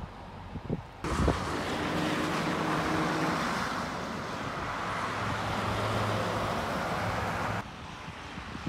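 Steady road traffic noise, a hiss of tyres with a low engine hum. It starts abruptly about a second in and cuts off shortly before the end.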